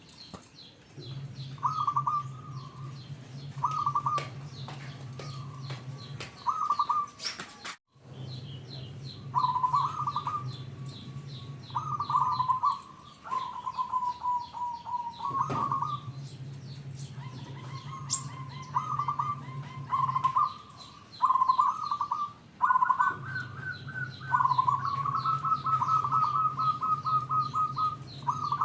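Zebra dove (perkutut) cooing: repeated rolling, stuttering coo phrases, a few seconds apart, with a longer run of quick pulses near the end. Small birds chirp faintly and steadily in the background.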